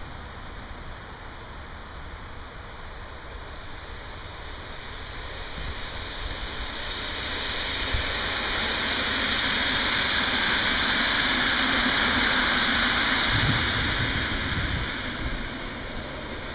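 NS Plan V electric multiple unit passing at speed: the rushing sound of its wheels on the rails swells as it approaches, stays loud for several seconds as it goes by, then fades away.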